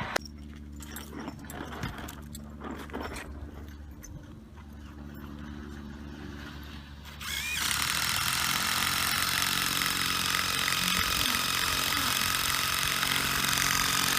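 A steady low hum with a few scattered knocks, then about halfway through a power tool starts and runs with a loud, steady, hissing whir.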